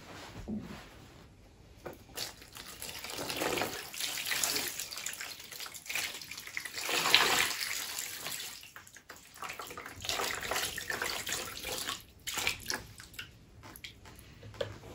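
Water poured from a plastic jug over bare feet, splashing into a plastic basin of water. It comes in a few pours with short pauses and is loudest about seven seconds in.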